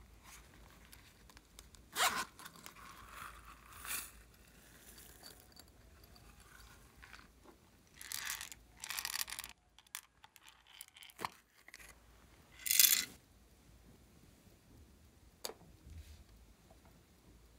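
Handling noises from a zippered silicone pencil case and small toys: a zipper being pulled, with scattered short scraping and rustling bursts and a few sharp clicks. The loudest burst comes about two-thirds of the way through.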